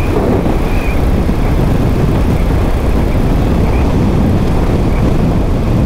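2015 Moto Guzzi Griso at road speed, heard from an onboard camera: a steady, loud rush of wind over the microphone with the engine running underneath.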